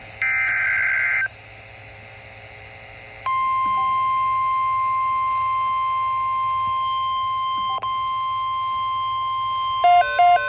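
NOAA Weather Radio alert: the last of the screeching SAME digital header bursts, then after a short pause the 1050 Hz warning alarm tone held steady. Near the end a pulsing beep, about two a second, joins over the tone.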